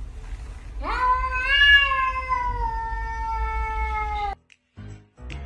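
Domestic tabby cat giving a single long yowl that rises quickly at the start, then holds and slowly falls for about three and a half seconds before cutting off suddenly.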